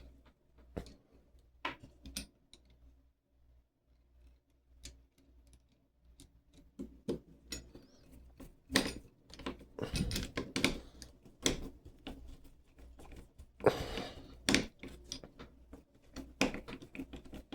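Small metal lock parts clicking and tapping as a repinned Schlage lock cylinder is handled and fitted back into its housing. The clicks are scattered, with a quieter stretch a few seconds in and busier clicking in the second half.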